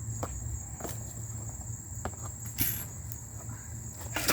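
Steady high-pitched drone of insects such as crickets, with a few scattered short knocks and rustles, the loudest about two and a half seconds in.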